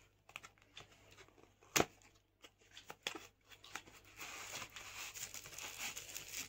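Cardboard product box being opened by hand: scattered small taps and clicks with one sharper snap about two seconds in, then a steady scraping rustle from about four seconds on as the inner tray slides out of the sleeve.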